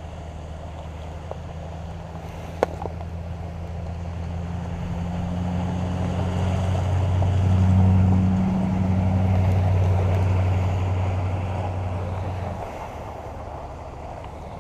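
A gun truck's engine humming as it comes closer, swelling to loudest about eight seconds in and then fading away about four seconds later. A single sharp crack about two and a half seconds in.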